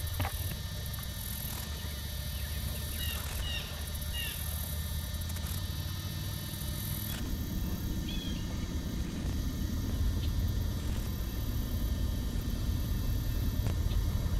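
A steady low rumble that grows a little louder toward the end, with a few short high bird chirps in the first few seconds and one more about eight seconds in.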